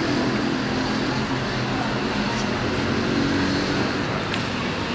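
Steady street traffic noise, an even rumble and hiss of cars on a nearby road.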